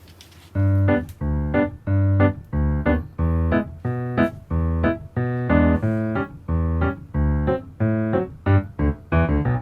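Background music: a keyboard plays short, bouncy notes about twice a second, quickening near the end.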